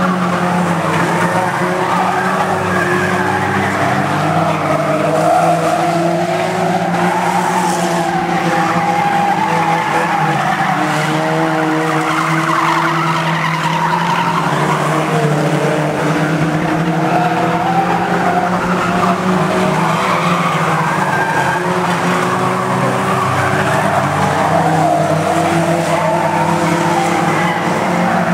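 A pack of Bangerstox banger stock cars racing on an oval, several engines running at once. Their overlapping pitches rise and fall as the cars accelerate and lift.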